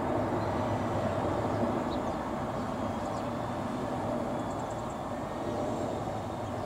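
Airbus A330-200's Rolls-Royce Trent 700 turbofans at approach power, with landing gear down, passing overhead as a steady rumble that fades slightly toward the end.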